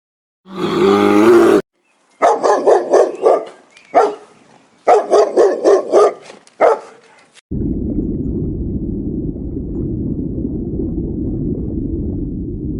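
Animal calls: one short pitched call, then two runs of quick repeated calls at about five a second. These are followed by a steady low noise that lasts the final five seconds.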